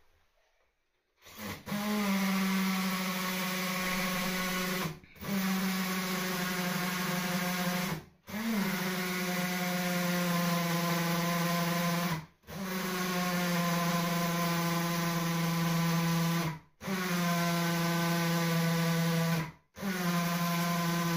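Power drill running in six stretches of three to four seconds each at a steady pitch, with short pauses between, working into the timber of the bathroom floor.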